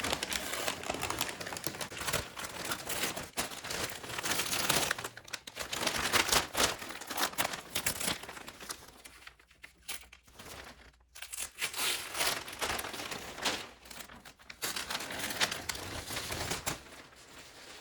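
Masking tape and paper being peeled off freshly painted metal: crinkling and tearing, dying down for a moment about halfway through.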